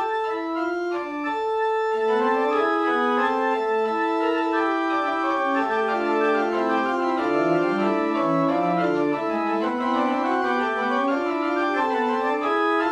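Organ music: several held notes sounding together, moving from chord to chord in steady steps.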